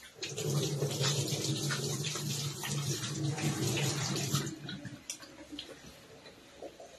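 Kitchen tap running into a sink as hands are washed, shut off about four and a half seconds in, followed by a few small clicks and drips.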